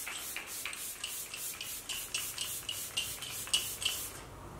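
A Fresh Vitamin Nectar face mist pump spray bottle being spritzed over and over, a quick run of short hisses at about four a second that stops shortly before the end.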